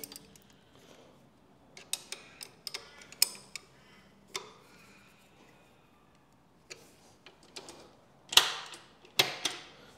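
Hand tools working the gear-shift linkage of a Yamaha Ténéré 700: scattered light metal clicks of spanners on the linkage rod's lock nuts, then two louder, short ratcheting strokes near the end.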